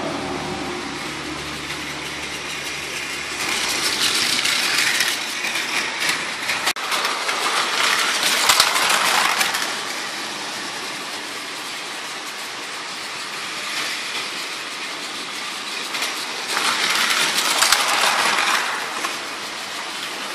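Battery-powered Plarail toy train running on plastic track, its motor whirring and wheels rattling steadily, growing louder as it passes close at about 4 seconds in for several seconds and again at about 16 seconds.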